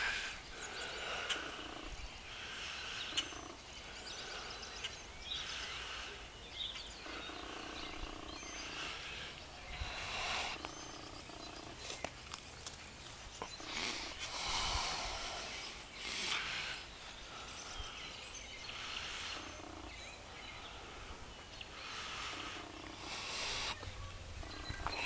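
Mini Australian Shepherd puppies growling in play, in short repeated bursts about every second or two.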